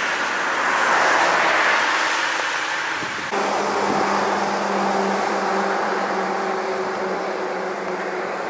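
Road traffic: a vehicle passes close with a rush of engine and tyre noise that swells and fades in the first few seconds. After a sudden cut about three seconds in, a steady hum of vehicle engines runs on.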